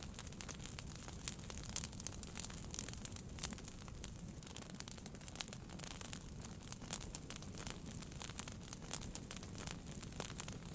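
Wood fire burning in a fireplace, crackling with frequent irregular sharp pops over a steady low rumble of the flames.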